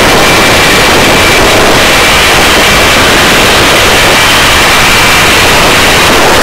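Rescue helicopter hovering during a hoist: a loud, steady rush of rotor and engine noise, with a faint steady high whine.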